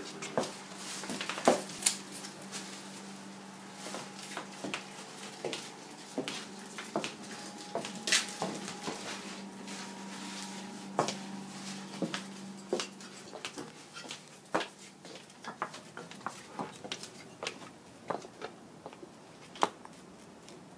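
Irregular light clicks and taps of a Boston terrier's claws and a person's footsteps walking across a tile floor. A steady low hum sounds behind them and stops about two-thirds of the way through.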